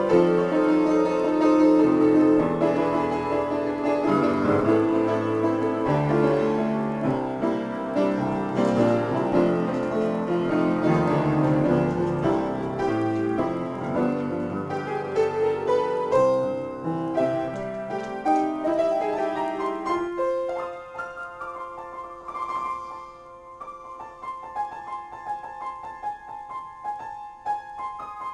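Upright piano played as a free improvisation: full, dense chords over low bass notes, thinning about twenty seconds in to sparse, quieter notes higher up.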